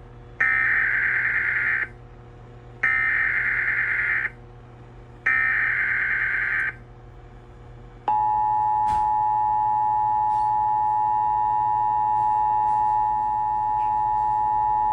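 Emergency Alert System activation announcing a tornado watch. Three bursts of SAME header data tones, each about a second and a half with short gaps between them, are followed about eight seconds in by the steady two-tone EAS attention signal (853 and 960 Hz).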